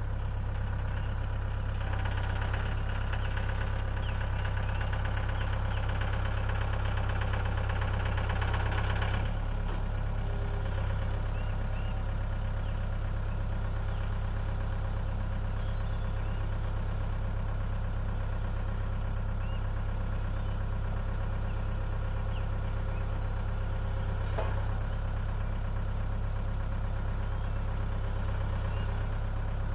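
Compact tractor's engine running while its front loader lifts and carries a log; the engine runs louder from about two seconds in and drops back to a steady lower note about nine seconds in.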